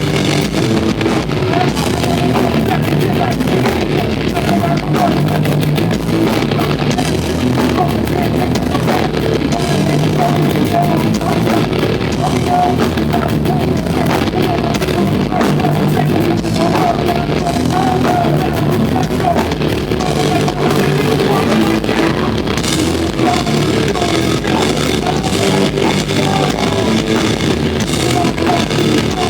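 Rock band playing live: distorted electric guitars, bass and a drum kit playing a heavy, loud song.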